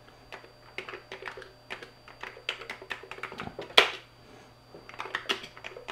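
Keys on a computer keyboard being typed, an irregular run of short clicks. A single much louder keystroke comes a little past halfway, the Return key entering a shell command.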